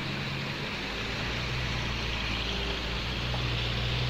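Pickup truck engines running steadily as the vehicles crawl along a muddy dirt track, a low even hum over a steady hiss.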